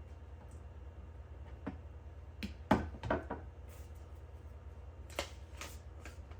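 Hands handling the gimbal's packaging and parts: scattered light clicks and taps, with one louder knock a little under halfway through and a few more clicks near the end, over a steady low hum.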